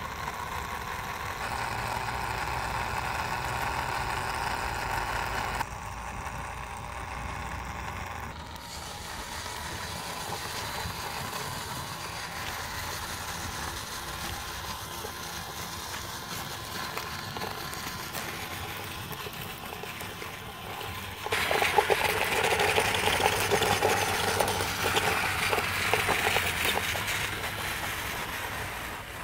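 Small motor of a miniature model power tiller running steadily as it drives, with a mechanical whirr; about three-quarters of the way through it gets louder and rougher.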